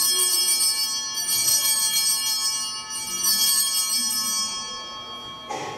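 Altar bells rung in three shakes at the elevation of the chalice, marking the consecration. Each shake rings on and fades; the ringing dies away by about five seconds in, and a brief knock follows near the end.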